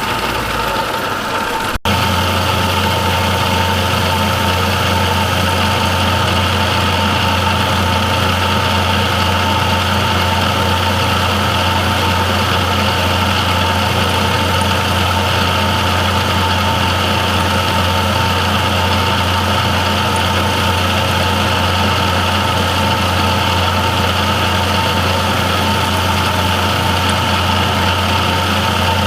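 Milling machine running steadily while milling slots in metal, a constant motor hum with a steady cutting tone. A brief break in the sound about two seconds in, after which the sound settles to an even level.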